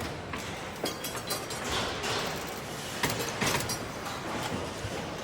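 Truck assembly-line noise: a steady industrial din with scattered metallic clanks and knocks.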